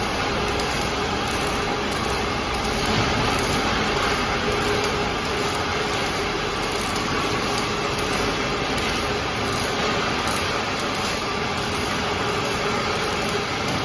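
Steady factory-floor noise from an automatic rebar cage welding machine at work, with a worker arc-welding the steel cage: an even, continuous noisy drone with a faint steady hum underneath.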